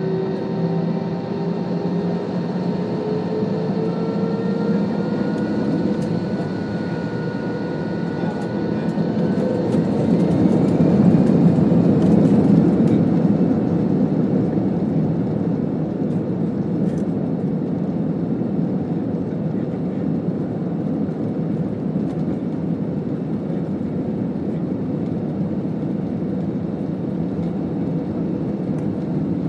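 Commercial airliner cabin during takeoff: the jet engines spool up with whines rising in pitch over the first ten seconds, then a louder rumble peaks briefly with a few rattles and clicks, settling into a steady rush of engine and air noise.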